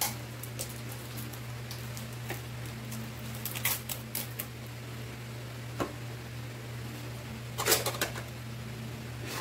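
Paper napkin crinkling and rustling as food is handled at the table, in scattered short crackles, louder about four seconds in and again near eight seconds. A steady low hum lies underneath.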